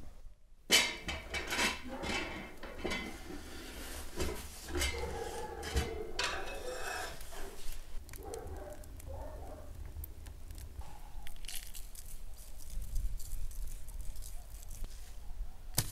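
Cast-iron pot and its lid clanking and scraping as the pot is handled. Near the end come fainter scattered light ticks of coarse salt falling onto an eel's skin.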